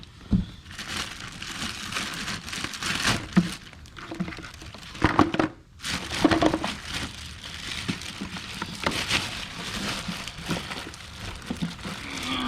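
Packaging being handled and crinkled while a pressure washer is unpacked: irregular rustling and crumpling with scattered knocks and clicks, a few louder than the rest.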